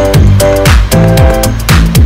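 Background electronic dance music with a steady kick-drum beat, about two beats a second, over held synth chords.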